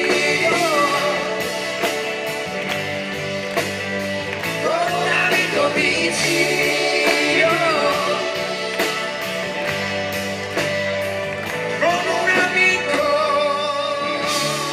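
A live pop-rock band with electric guitar and keyboard plays over a steady beat. Wordless vocal lines bend in pitch above it.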